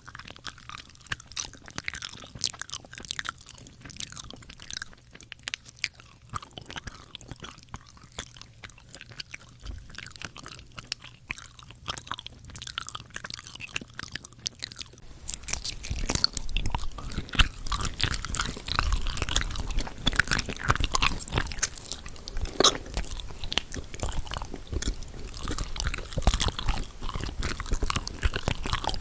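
Close-miked eating sounds: crunchy bites and chewing, a dense run of sharp crackles, growing louder and fuller about halfway through.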